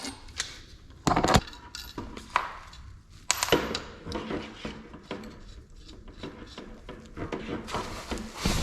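Light metal clinks and knocks of plumbing tools and fittings being handled. Two louder knocks come about a second in and about three and a half seconds in.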